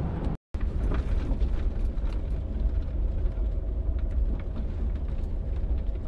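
Interior noise of a Jeep rolling along: a steady low engine and road rumble with scattered light ticks. The sound drops out completely for a moment about half a second in.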